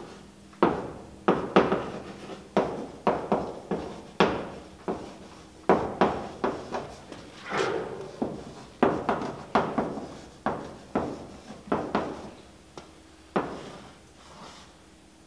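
Chalk writing on a blackboard: a run of irregular sharp taps and short scrapes as each letter is struck, each tap with a brief ring. The taps thin out and soften near the end.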